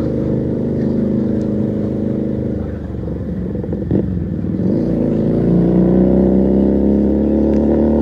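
Keeway SCR 250 motorcycle's engine through a Rez Speed aftermarket exhaust while riding: it eases off about three seconds in, its pitch falling, then picks up again about five seconds in and runs steadily at a higher pitch.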